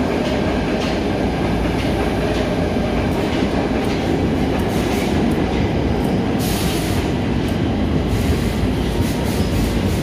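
Stockholm metro train running on the rails: a steady loud rumble with repeated clicks of the wheels over the track and a brief hiss about six and a half seconds in.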